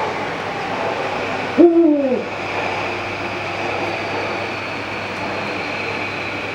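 Eurasian eagle-owl giving a single deep hoot about a second and a half in, its pitch rising slightly then falling away, over steady background noise.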